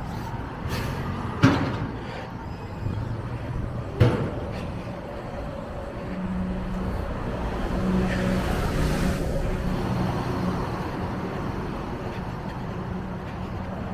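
Street traffic: a motor vehicle's engine hum that swells about halfway through and holds steady. Two sharp knocks come in the first four seconds and are the loudest sounds.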